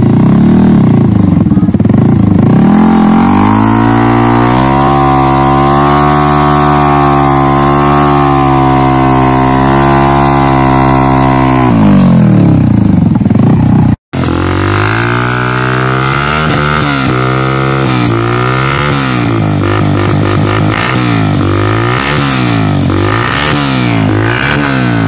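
Yamaha R15 V3's single-cylinder engine through an aftermarket slip-on exhaust, revved up and held high for several seconds while the rear wheel spins in sand, then dropping back. A Bajaj Pulsar 180's single-cylinder engine follows, through an Akrapovic-branded slip-on silencer, revved in quick repeated blips, about one a second.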